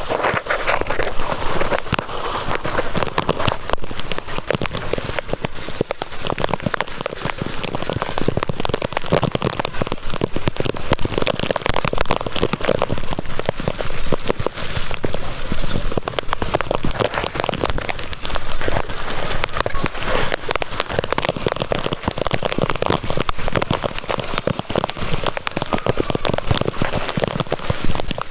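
Heavy rain falling steadily, with a dense run of sharp drop hits close by.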